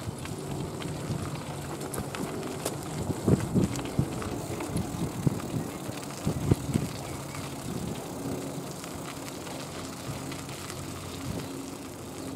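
Bicycle ridden along a gravel towpath: a steady rumble from the tyres with irregular knocks and rattles from bumps, heaviest a few seconds in.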